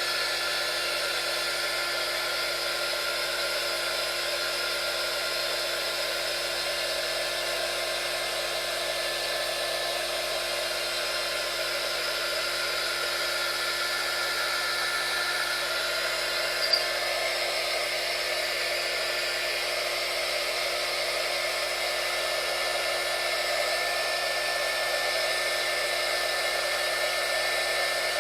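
Small electric heat gun running steadily, its fan motor blowing with a constant whine while it heats shrink tubing. A single short click about two-thirds of the way through.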